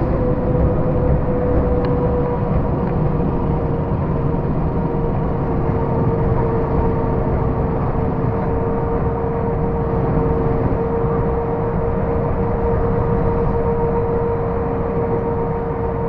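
Volvo truck heard from inside its cab while cruising on a highway: a steady engine drone with tyre and road noise, and a steady whine that drops slightly in pitch a couple of seconds in and then holds.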